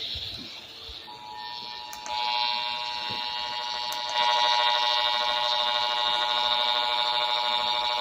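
Emergency Alert System two-tone attention signal received off the radio: a steady, buzzy two-note alarm tone that starts about a second in and gets louder twice.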